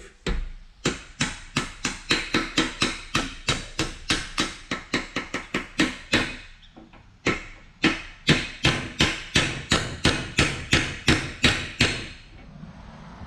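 Hammer tapping repeatedly on a gearbox output shaft clamped in a bench vise to drive a bearing off it, about three sharp blows a second with a short pause a little past halfway.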